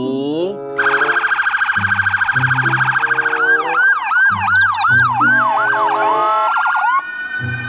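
Electronic police siren. It starts about a second in with a fast pulsing warble, switches partway through to a rapid yelp of about three sweeps a second, and ends on a slow rising wail. A simple children's tune plays under it.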